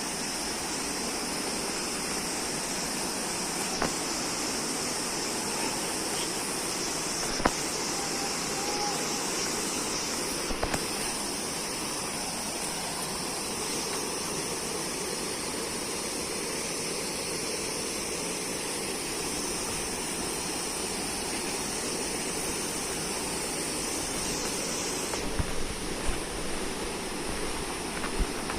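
Waterfall: a steady rush of falling water with a bright hiss. There are a few brief knocks, and near the end the hiss drops and a low rumble rises.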